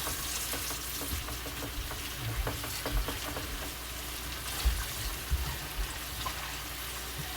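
Shredded beef chuck frying in a pan with taco seasoning, a steady sizzle throughout, with a few soft low thumps in the middle.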